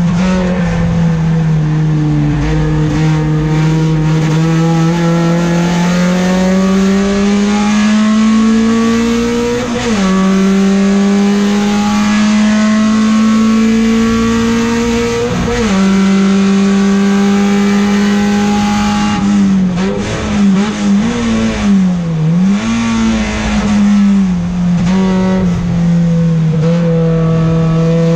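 Peugeot 405 STi race car's four-cylinder engine heard from inside the cockpit, pulling hard with the revs climbing, cut by two quick upshifts about 10 and 15 seconds in. Later the revs waver up and down in quick blips for several seconds, then drop low and begin climbing again near the end.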